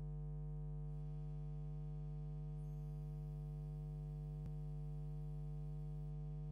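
Steady electrical mains hum at 50 Hz and its harmonics, a ground-loop buzz from the sound system or recording chain, with one faint click about two-thirds of the way in.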